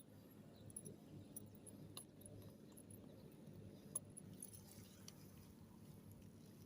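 Near silence: a faint low hum with a few sharp faint clicks, one near the start and others about two and four seconds in.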